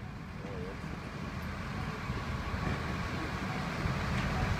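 Steady rumble of running vehicle engines and road traffic, mostly low and deep, growing slowly louder.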